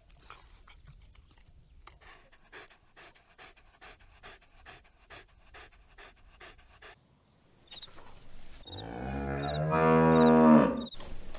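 A dog panting with quick, even breaths, then after a short pause a cow gives one long, loud moo near the end.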